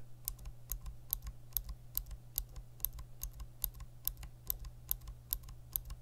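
Gateron Blue clicky mechanical keyboard switch pressed and released over and over, giving sharp crisp clicks about four or five times a second.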